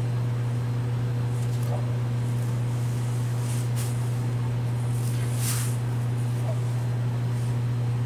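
A steady low hum with a few faint, brief rustles.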